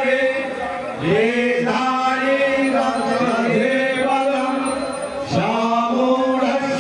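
Hindu mantra chanting for a yajna fire ritual: a voice intoning in long, steady-pitched phrases, a new phrase swooping in about a second in and again after about five seconds.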